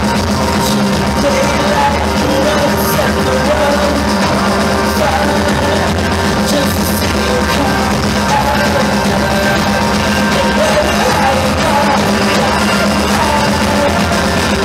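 A rock band playing live and loud, with lead vocals sung over electric guitars and drums, heard from within the audience.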